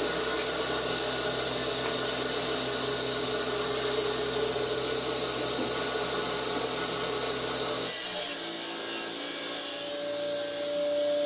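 Power stone-cutting saw running steadily, with a grinding whine. About eight seconds in, the sound changes abruptly to a different steady, higher whine.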